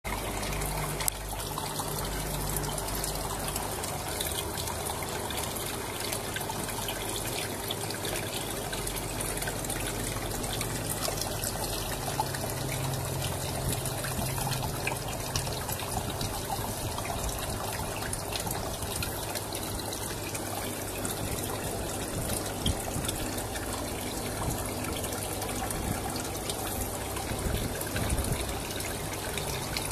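Water running and trickling steadily, splashing into shallow water in a plastic basket.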